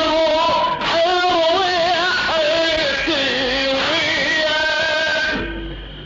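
A radood's voice chanting a Husseini lament (latmiyya) in a wavering, ornamented melodic line. It dips down briefly near the end.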